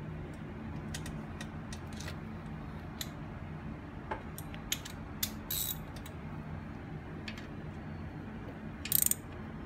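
Scattered metal clicks and taps of a hand socket wrench working the transmission plug on a Harley-Davidson Road King, ending about nine seconds in with a quick run of louder ratchet clicks.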